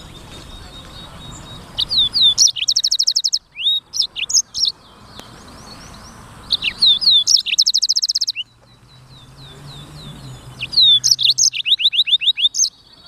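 Blackthroat (black-throated canary) singing three bursts of song a few seconds apart, each a run of quick rising whistles and fast rattling trills.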